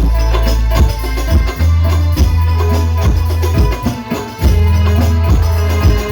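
Sholawatan music with hand percussion and heavy, sustained bass, played loud through a sound system being tested.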